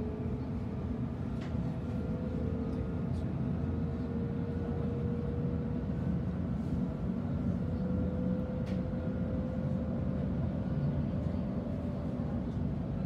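Inside a Sydney Trains Millennium electric train carriage on the move: a steady low rumble of wheels on the rails with a thin motor whine that rises slowly, and a few faint clicks.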